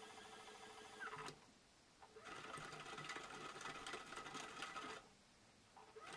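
AEG Lavamat 8000 Series front-loading washing machine struggling with an unbalanced load in its spin after the first rinse. The drum motor's steady whine winds down about a second in. After a pause, the drum tumbles the laundry to redistribute it, a sped-up stretch full of clicks. Near the end the motor whine rises again as it tries another spin-up.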